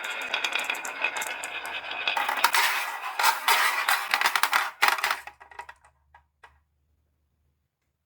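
Many glass marbles rolling and clattering down a wooden marble run: dense clicking and rattling that thins to a few last clicks and stops about six and a half seconds in.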